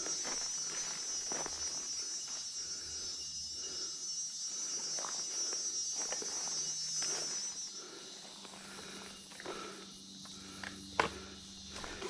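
Steady high-pitched insect chorus that stops about eight seconds in, over irregular footsteps and rustling on the forest floor, with one sharp snap near the end.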